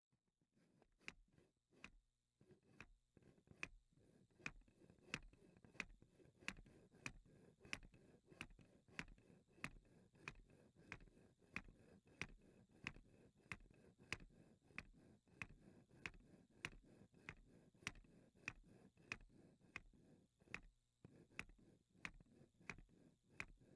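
Wooden model of Bessler's weight-driven wheel turning, its internal mechanism knocking in a steady rhythm of about three louder clacks every two seconds, with softer clicks between. The knocks are uneven for the first couple of seconds before settling, and they pause briefly near the end.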